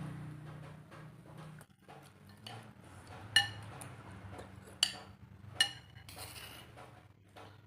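Cutlery clinking against a dish three times, each strike ringing briefly, over small soft scraping sounds of eating.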